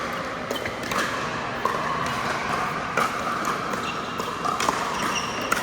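Pickleball paddles striking the hard plastic ball: about five sharp pops at irregular intervals, with short sneaker squeaks on the indoor court floor between them.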